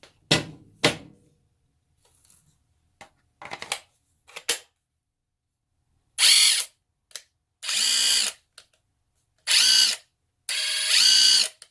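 Tenwa half-inch cordless impact wrench spinning free in four short trigger pulls, each with a rising whine as the motor speeds up, running on a swapped-in Makita battery. Before that come a few sharp plastic clicks as the battery is slid off and on.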